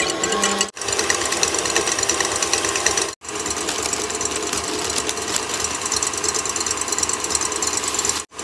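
Electric stand mixer running at high speed, its wire whisk rattling against the steel bowl as it whips egg whites into meringue. The sound cuts off abruptly three times.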